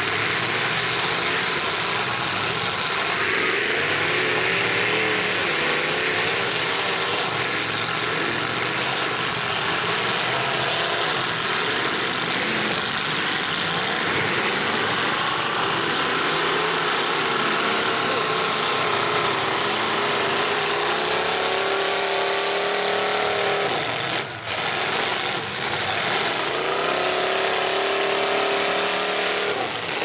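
Several demolition derby cars from the 1980s class running and revving hard together as they drive at each other in the arena, engine pitches rising and falling over one another throughout.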